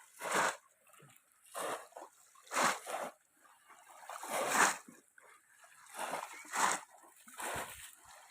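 Water splashing and sloshing in shallow water, a string of separate splashes about once a second, some louder than others.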